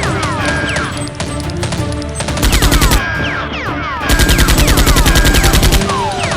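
Two bursts of rapid automatic gunfire, a short one and then a longer one of about ten shots a second, over background action music.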